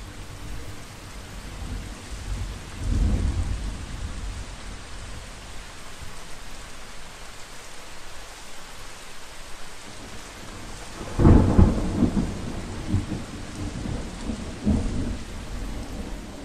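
Steady rain hissing, with rumbles of thunder: a short one about three seconds in and a louder, longer roll from about eleven seconds that trails off in several smaller rumbles.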